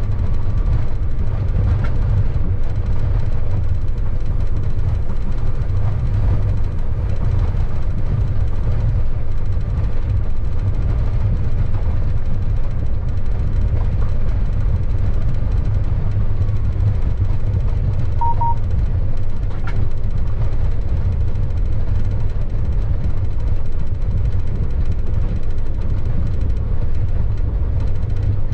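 Steady low rumble of a locomotive running light, heard from inside its cab. A short double beep sounds about 18 seconds in.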